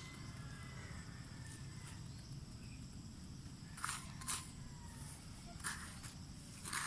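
Hands and a small plastic toy scraping and scooping gravelly dirt: a few short, rough scrapes from about four seconds in, over a steady low background rumble.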